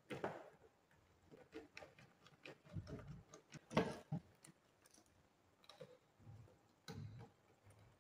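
Scattered small clicks and taps of wiring work: a copper wire being set into the terminals of an energy meter and breaker, and a screwdriver working the terminal screws. The loudest click comes a little before the halfway point.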